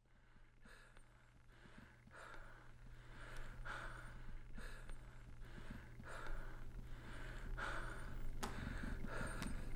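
A person breathing hard and fast, about two breaths a second, fading in and growing louder, over a low steady hum.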